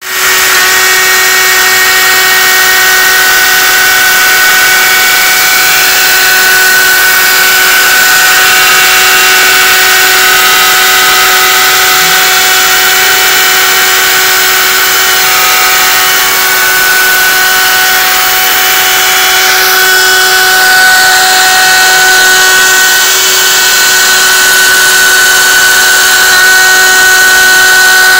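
CNC router spindle milling aluminium plate with an end mill: a loud, steady high-pitched whine over a hiss.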